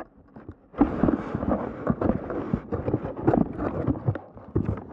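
Irregular knocking, scraping and rustling from a camera being jostled inside a cardboard box as the box is handled and opened, starting about a second in.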